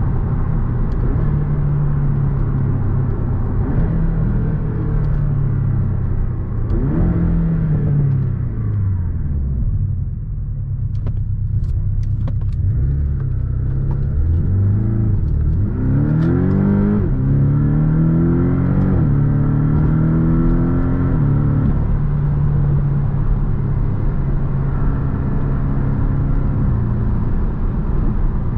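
Porsche 718 Boxster's turbocharged 2.0-litre flat-four engine heard from the cabin while driving. The engine note falls as the car slows about six seconds in and stays low for several seconds. From about fifteen seconds in it rises in several quick steps under acceleration, then settles into a steady cruise.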